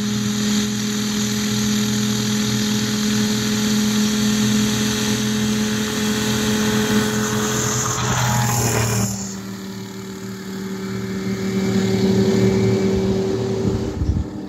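Kitfox Model 3 ultralight's Rotax 582 two-stroke engine running steadily as the plane taxis and takes off, with a brief rush of noise about eight seconds in as it passes close. The drone swells again and fades near the end as the plane climbs away.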